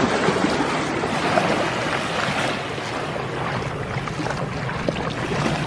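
Ocean surf and wind: a steady, loud rush of waves.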